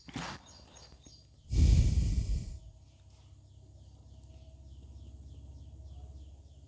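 A loud breath blown out close to the microphone, about a second long, coming shortly after a brief breath at the start; a faint low hum follows.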